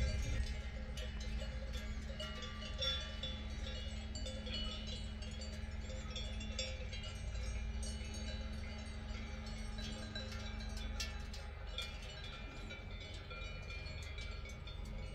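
Cowbells on a grazing herd of cows, clanking and ringing irregularly, many bells at different pitches, over a steady low rumble.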